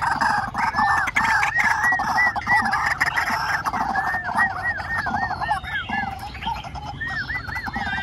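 White-breasted waterhens calling: three runs of repeated arched notes, about four a second, starting about a second in, at about four seconds and near the end, over a dense, continuous background of calling.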